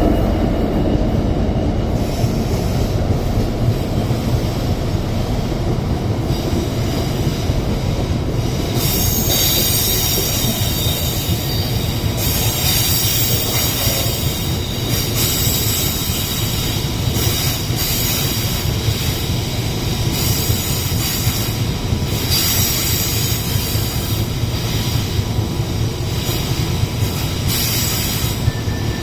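A GBRF Class 66 diesel locomotive hauling a freight train past, a loud steady rumble of the engine and wagons on the rails. From about nine seconds in, high-pitched wheel squeal comes and goes over it.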